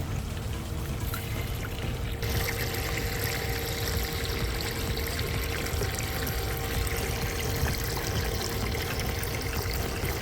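Water from a garden hose pouring and trickling into a cement fountain basin. It is a steady splash that gets brighter and fuller about two seconds in.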